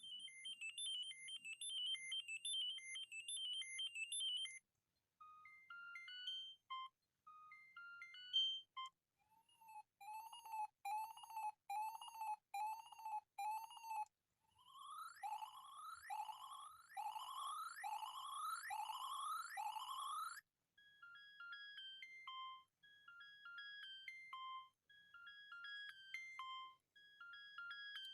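Siemens BenQ A75 mobile phone playing a series of ringtones one after another, each a few seconds long: short electronic melodies, a fast repeating chirp, then six rising sweeps, then another short-note melody.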